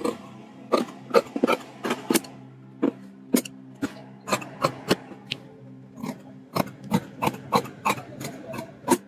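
Tailor's shears cutting through doubled fabric along a marked sleeve line: a run of about twenty sharp snips, roughly three a second, with two brief pauses.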